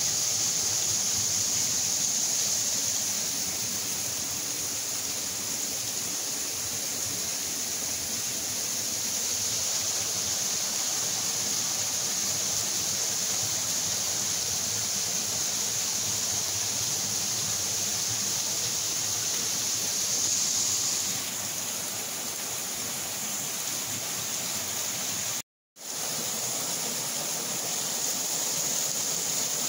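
Steady rush of a strongly flowing waterfall, partly frozen over, with its spray giving a bright hiss. It cuts out completely for a split second near the end, then resumes.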